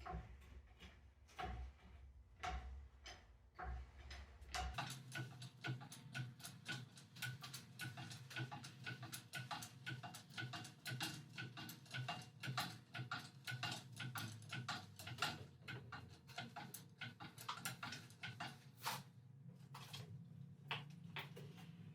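Rapid, irregular light clicks and taps, sparse at first and much denser from about five seconds in, over a low background hum that changes at that point.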